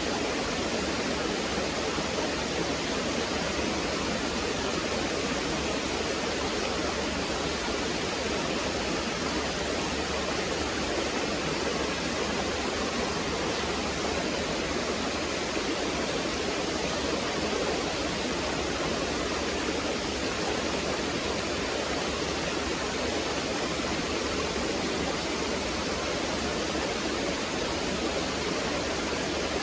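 Waterfall on a stream, water pouring and gurgling in a steady, even rush.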